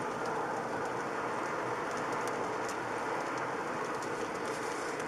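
Steady road and tyre noise of a car driving, picked up inside the cabin by a dashcam microphone, with faint scattered light ticks.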